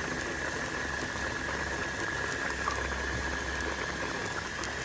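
Mutton curry of broth and tomatoes boiling hard in a metal karahi on a gas burner: a steady bubbling hiss with a constant high tone underneath.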